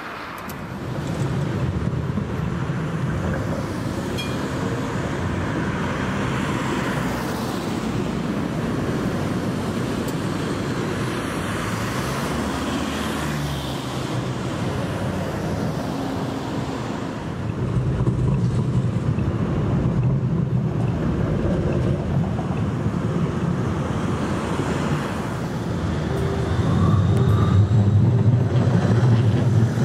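City street traffic: cars and vans driving past on a multi-lane road, a steady wash of engine and tyre noise that rises in level twice. Near the end a tram passes close by, and this is the loudest part.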